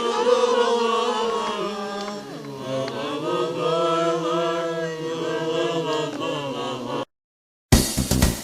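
A group of voices singing long, drawn-out notes together, as a chant. The singing cuts off abruptly about seven seconds in, and after a brief silence band music with guitar and drums starts near the end.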